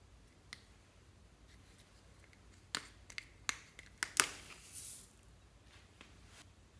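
Sharp plastic clicks and snaps as a bow-shaped plastic case full of foam beads is pried open, followed by a brief high hiss of the tiny foam beads pouring out.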